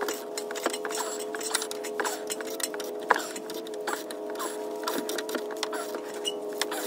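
Irregular metallic clicks and taps of a wrench working on the rear shock absorber's mounting bolt, about one or two a second, over a steady hum.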